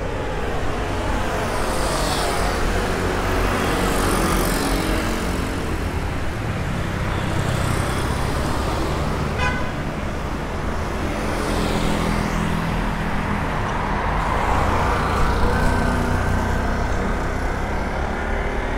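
City street traffic: motorcycles and cars passing close by one after another, each rising and fading over a steady low rumble of road noise. A short run of quick ticks sounds about halfway through.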